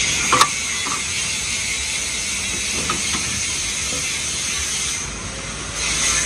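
A few light metallic clicks and knocks as intercooler and front-end parts of a tractor are handled and fitted, the sharpest about half a second in, over a steady hiss that dips briefly near the end.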